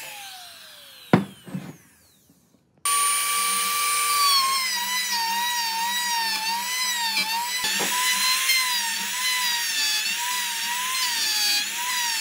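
Handheld trim router winding down after switch-off, its whine falling in pitch, with a sharp knock about a second in. After a brief quiet gap the router is running again at full speed, its whine dipping and wavering as the bit cuts a groove in a solid wooden beam.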